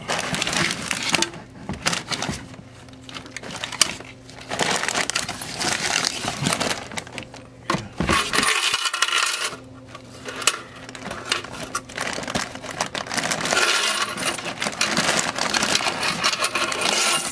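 Loose coins jingling and clinking as change is handled and pushed into a fabric cash bag, with rustling from the bag and bills between the clinks. A steady low hum runs underneath.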